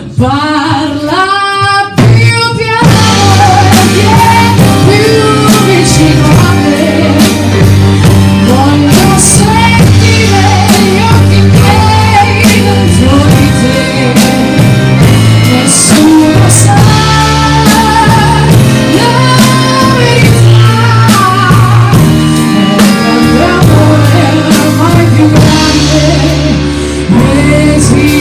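Live band of grand piano, accordion, double bass and drum kit playing an instrumental passage, with the accordion carrying the melody. A sung note with wide vibrato glides and ends about two seconds in.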